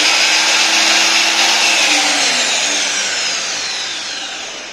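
DeWalt DWS780 sliding miter saw running free at full speed with a high motor whine. About two seconds in the trigger is released and the blade spins down, the whine falling in pitch and fading as the saw's electric brake slows it.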